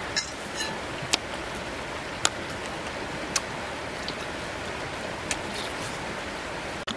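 Steady rush of a shallow rocky river, with sharp wet mouth clicks from lip-smacking and chewing about once a second.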